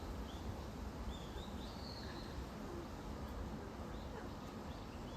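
North American porcupine making faint, high-pitched squeaky whines: a few short rising calls in the first half, over steady low background noise.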